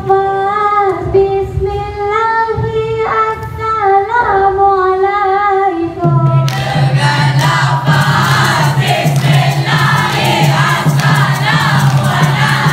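A girl singing solo into a microphone, holding long sustained notes. About six seconds in, a choir and musical accompaniment with a steady bass and beat come in under her.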